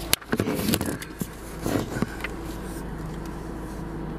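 Knocks and rustles of a camera being handled and set in place in the first two seconds, over a steady low hum from the car.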